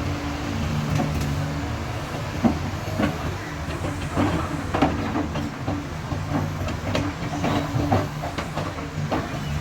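Excavator's diesel engine running steadily under load, with many short clanks and knocks scattered through, thickest in the second half.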